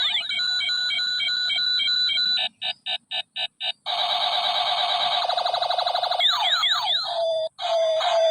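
Electronic sound chip of a battery-powered toy pistol playing siren-like shooting effects. A pulsing electronic tone gives way about two and a half seconds in to five short beeps, then a fast buzzing warble and a run of quick falling laser-style zaps.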